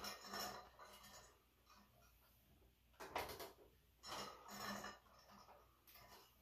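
Iron weight plates and the chain holding them from a dip belt clinking and rattling in short bursts during belt squats, near the start, about three seconds in and again at four to five seconds in.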